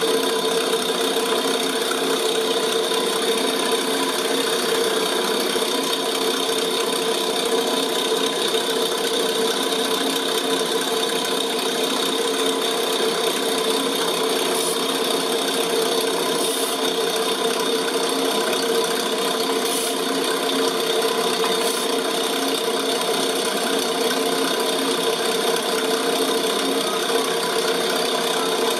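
Gem-faceting machine running: its motor and spinning lap give a constant, steady hum, with a few faint high clicks about midway through.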